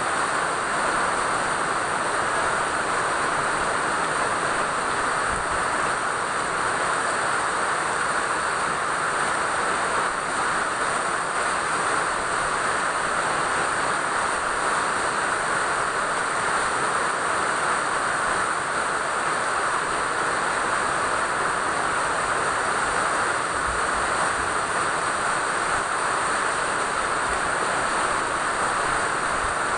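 Steady rainfall: an even, unbroken hiss with no distinct drops standing out.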